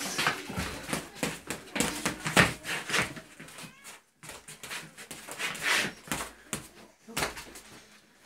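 Padded boxing gloves slapping and thudding irregularly in a mock sparring match, mixed with short, high children's vocal noises.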